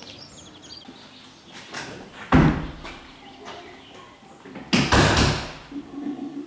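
A toilet-block door banging twice: a sharp knock about two seconds in, then a louder, longer bang near the five-second mark that fades out over about half a second.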